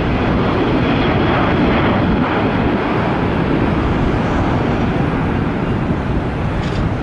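Airbus A380's four jet engines running loud and steady as the airliner passes, easing slightly near the end.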